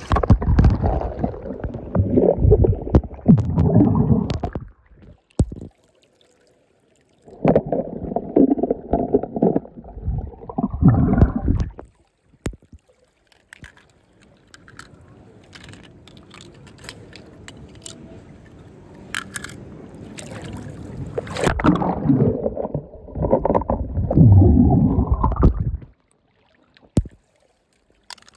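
Water splashing and gurgling in three spells of a few seconds each, the pitch rising near the end of each spell.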